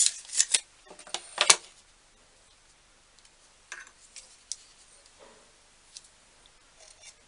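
Light clicks and taps of tools being handled while a part is measured: a quick cluster of sharp clicks in the first second and a half, then a few faint scattered ticks.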